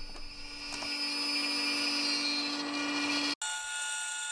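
CNC router spindle whining steadily as it cuts clamp parts out of scrap wood. About three seconds in the sound cuts off abruptly and a different, higher steady whine takes over.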